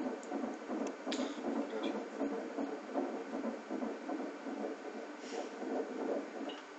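Doppler audio of a 16-week fetal heartbeat from a Siemens ultrasound machine's speaker: a rapid, rhythmic whooshing pulse.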